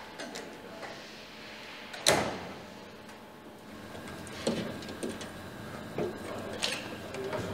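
Workshop handling noises on a car body: one sharp knock about two seconds in, then a series of lighter clicks and taps.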